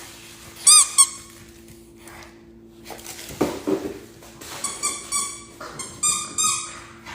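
A dog's squeaky plush toy squeezed in the dog's mouth, squeaking twice about a second in and then in a quick run of squeaks in the second half. A faint steady hum runs underneath.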